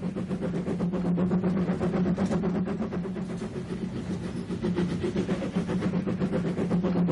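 Narrow-gauge steam locomotive hauling a train, its exhaust beating in quick, regular chuffs.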